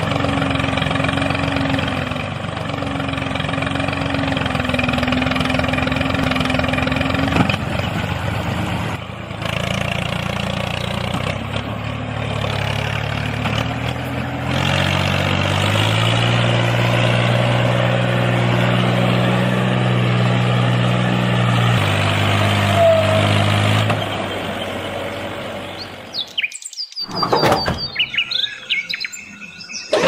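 Tractor engine running steadily while birds chirp. The engine note steps up about halfway through, eases a little after that, then fades out near the end among a few high whistling chirps.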